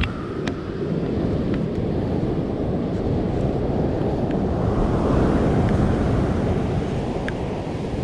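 Wind buffeting the microphone over the steady wash of surf, a continuous rush that swells slightly partway through, with a few faint light clicks.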